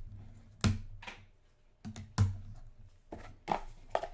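Hard plastic card holders and a clear plastic case being handled and set down on a table: a run of about six sharp clicks and taps at uneven intervals.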